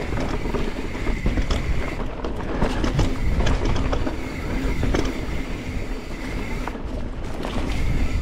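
Mountain bike rolling downhill on a dry, rocky dirt trail: a steady low rumble of tyres and wind on the microphone, with scattered knocks and rattles as the bike runs over stones.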